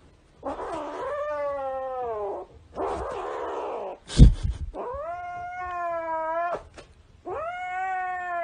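Grey kitten yowling: three long, drawn-out cries, the first falling in pitch, with raspy stretches between them. A sharp thump about four seconds in is the loudest sound.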